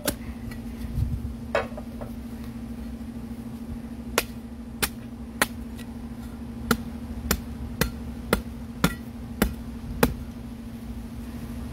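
Machete chopping the husk of a green coconut: a dozen or so sharp blows, a couple spaced out at first, then steady at about two a second.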